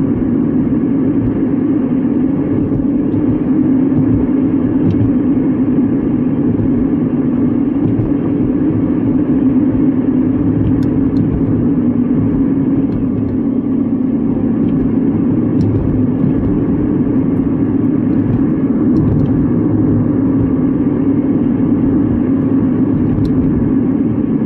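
Steady road noise inside a moving car's cabin: engine and tyres on wet pavement, an even low rumble that holds unchanged throughout.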